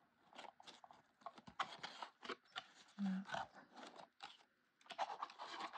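Paper poinsettia flowers rustling and crinkling as they are handled and pressed into place, a string of soft, irregular scrapes and taps.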